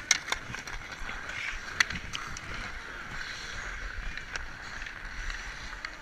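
Ice skate blades scraping and carving on rink ice, with several sharp clicks of hockey sticks and puck, the loudest just after the start and about two seconds in.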